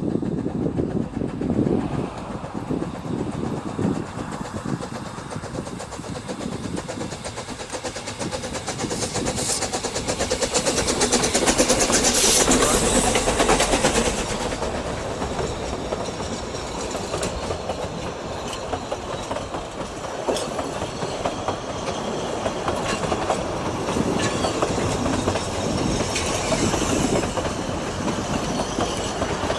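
Narrow-gauge steam train passing close by. The locomotive goes past loudest about ten to fourteen seconds in, then the coaches roll steadily past on the track.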